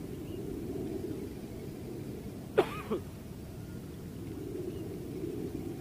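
A person coughing: two quick coughs about a third of a second apart, a little past halfway, over a steady low background rumble.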